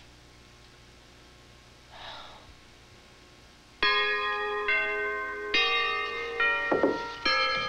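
Quiet for the first few seconds apart from one faint breathy sound, then bells start ringing loudly about four seconds in, a new stroke roughly every second, each one ringing with many tones.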